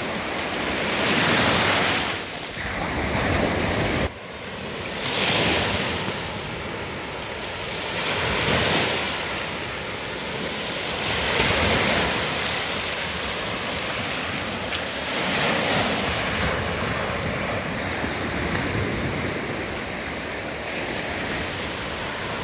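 Small sea waves breaking and washing up a sandy shore, the surf noise swelling with each wave about every three to four seconds.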